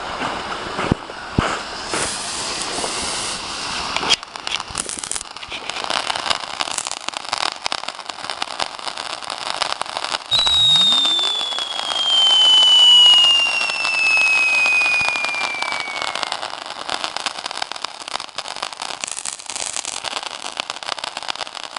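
A long-burning consumer firework going off with dense crackling and scattered sharp pops. About ten seconds in, a clear high whistle starts and falls steadily in pitch over several seconds.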